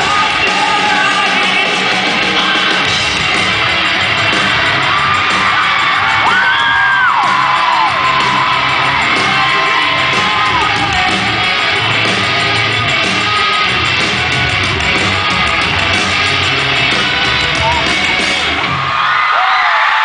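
Live rock band playing loudly with singing, heard from the audience.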